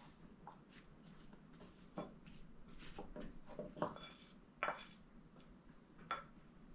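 Wooden spatula stirring cubed apple, banana and orange in a glass bowl: faint wet squishing with scattered light taps against the glass and a few louder knocks.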